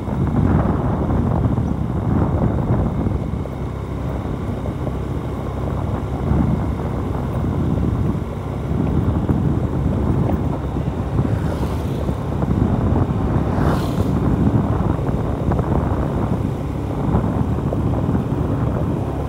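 Wind buffeting the microphone over the running of a motorcycle on the move, a steady low rumble that gusts, with two brief hisses about twelve and fourteen seconds in.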